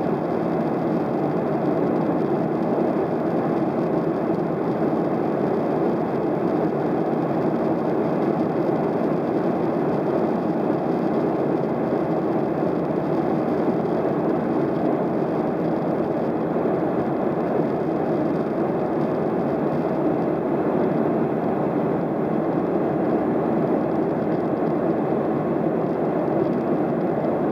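Steady cabin noise inside a Boeing 737-700 in flight: the drone of its CFM56-7B turbofan engines mixed with rushing airflow. It stays even, with no change in pitch or level.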